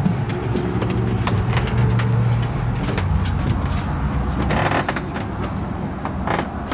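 A steady low hum runs under the whole stretch, fading a little after the first half, with scattered clicks and knocks as a house door with a brass knob is opened and someone walks in.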